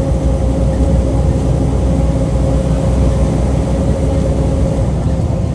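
Mercedes-Benz O-500UA bus's diesel engine running at a steady pace, a low rumble with a steady whine above it.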